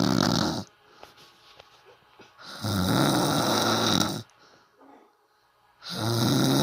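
A person snoring loudly in long, rattling snores about every three seconds: one trailing off in the first second, one in the middle, and a third starting near the end.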